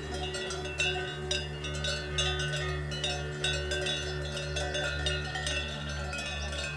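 Several sheep bells clanking irregularly as a flock grazes, many overlapping strikes with a metallic ring.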